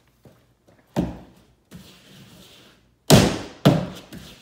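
Three sharp thuds: one about a second in, then two louder ones close together near the end, with a brief rustle between.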